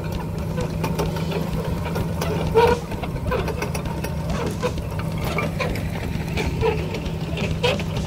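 Tractor engine running steadily under load while a rear-mounted implement tears old vine roots and clods out of the soil, with scattered knocks and cracks; the loudest knock comes a little under three seconds in.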